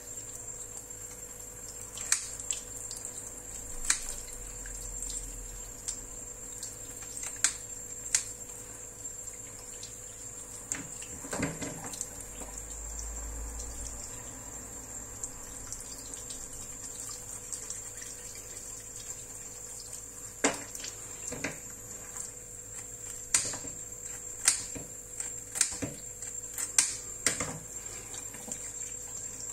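Fish being cut into steaks and fillets with a knife: irregular sharp knocks of the blade on a cutting board, more frequent in the second half, over wet handling noise.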